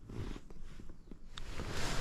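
Rustling and light knocks of handling noise, with a hiss that swells near the end.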